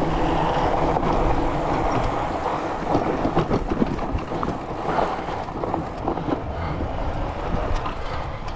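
Bikonit MD 750 fat-tire e-bike coasting down a dirt trail: steady wind rumble on the microphone with tyre noise, and from about three seconds in a run of clicks and knocks as the bike rattles over rough ground.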